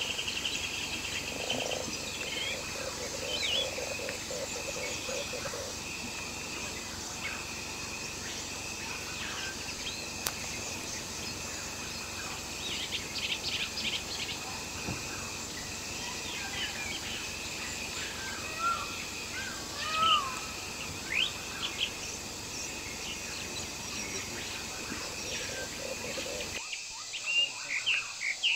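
Forest ambience: a steady, high insect drone with many short bird chirps and calls scattered throughout.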